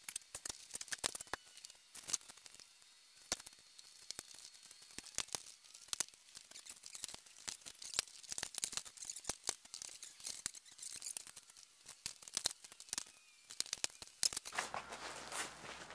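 Irregular sharp clicks and ticks of hand tools working on metal under the front of a crash-damaged Toyota Hilux, in quick clusters at the start and again in the middle.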